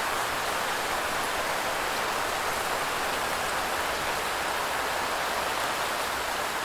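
Steady rain: an even, unbroken hiss of falling rain.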